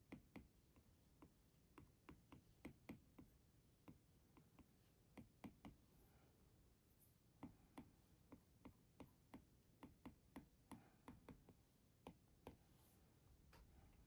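Stylus tip tapping and stroking on a tablet's glass screen while colouring: faint, irregular clicks, a few a second.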